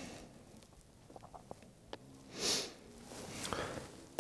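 A few faint scattered clicks, then one short, sharp sniff through the nose about two and a half seconds in.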